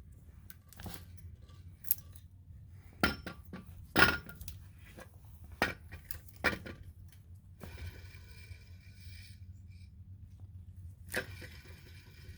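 Scattered metallic clinks and knocks of tools and alternator parts being handled, about six sharp strikes with the loudest about four seconds in, and a faint steady tone for a couple of seconds past the middle.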